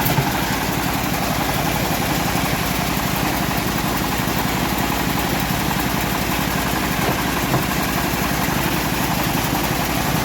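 Engine of a homemade bandsaw mill running steadily at an even speed.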